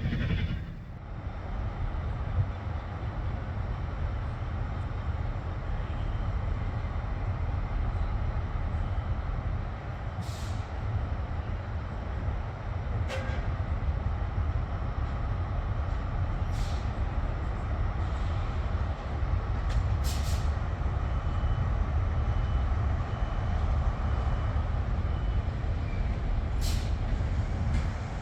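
A train running through a station: a steady low rumble, broken by about five short high-pitched hisses.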